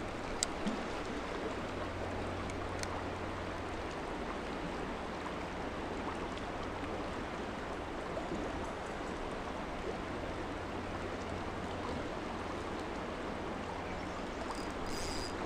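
Steady rush of river water pouring over a dam spillway, with two faint clicks in the first few seconds.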